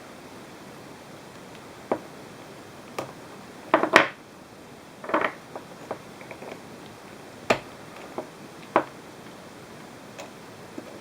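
Irregular clicks and knocks of hard parts being handled, as of a RAM camera mount being fitted together, with a louder clatter about four seconds in and a short rattle soon after.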